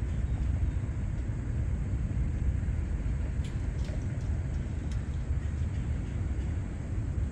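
Outdoor ambience: a steady low rumble, with a few faint clicks between about three and a half and five seconds in.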